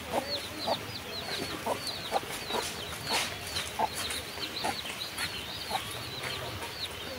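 Birds calling: a quick run of short, hooked chirps, several a second, with lower short calls scattered in between.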